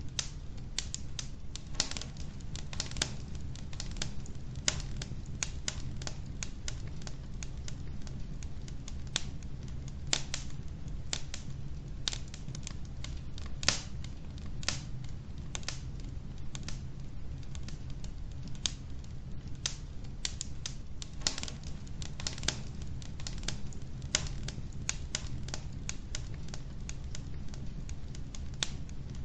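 Wood logs burning in a fireplace: irregular sharp crackles and pops, several a second, with a few louder pops among them, over a steady low rumble of the fire.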